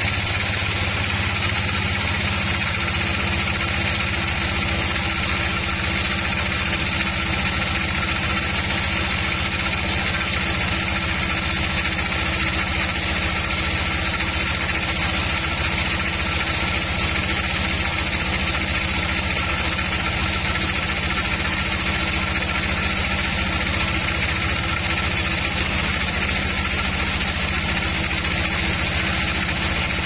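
Band sawmill running steadily, its blade cutting lengthwise through a large trembesi (rain tree) log.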